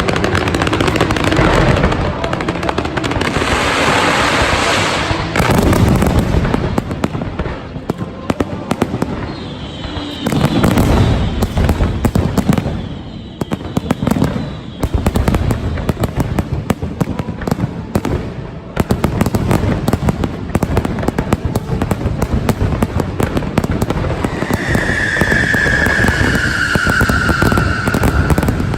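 Fireworks display: continuous crackling and repeated booms of aerial shells bursting, with a whistling firework's note sliding down near the end.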